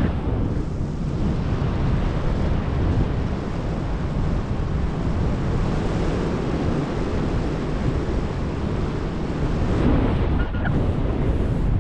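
Wind buffeting the microphone in flight under a paraglider: a steady, loud rushing rumble.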